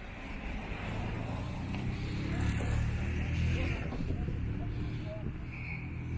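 A motor vehicle passing in street traffic, its low engine and road rumble swelling to a peak midway and then fading.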